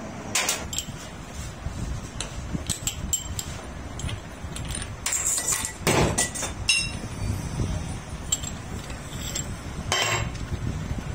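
Steel hand tools and lathe chuck parts being handled: a scattered series of sharp metallic clinks and knocks, the loudest about six seconds in and again near ten seconds.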